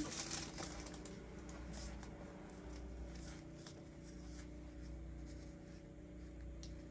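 Pokémon trading cards being flipped through by hand, one moved to the back of the stack after another: a scattering of soft card clicks and slides over a faint steady hum.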